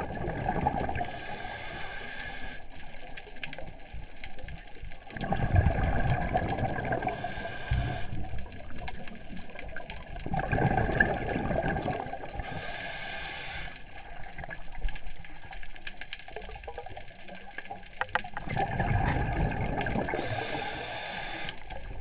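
Scuba diver's regulator breathing heard underwater. A low bubbling rumble of exhaled air is followed by a short hiss of inhalation, the cycle repeating about every six to seven seconds.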